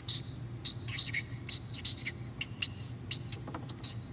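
Felt-tip marker squeaking and scratching across a flip-chart pad as a drawing is sketched, in many short quick strokes, over a low steady hum.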